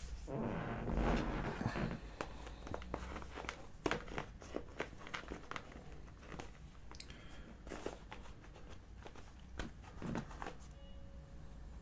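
Faint handling noises at a desk: scattered light clicks and taps with a soft rustle in the first two seconds, as the figure's small parts and bandolier are picked up and moved.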